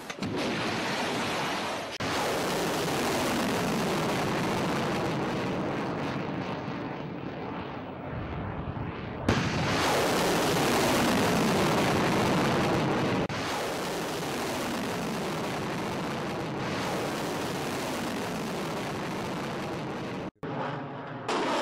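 Missile rocket motors firing at launch: a loud rushing roar that sweeps down in pitch as each missile climbs away. Several launches are cut together, so the roar changes abruptly at each cut.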